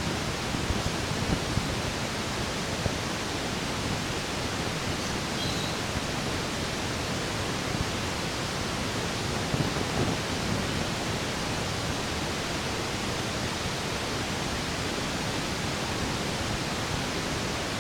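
A steady, even hiss, with a few brief soft bumps about a second in and again around ten seconds.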